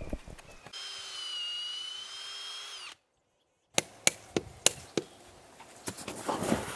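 Cordless drill boring a tap hole in a maple trunk for about two seconds, its motor pitch sagging a little under load and rising just as it stops. After a short break come several sharp knocks and some handling noise at the tree.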